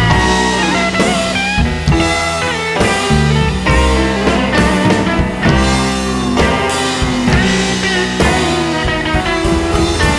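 Background rock music with electric guitar, bass and drums.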